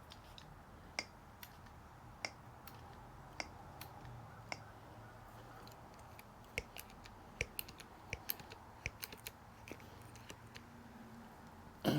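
Sharp clicks from a Pittsburgh hand-operated hydraulic wire crimper as its handles are pumped to crimp a lug onto a heavy cable. A few clicks come about a second apart at first, then come quicker and closer together in the second half.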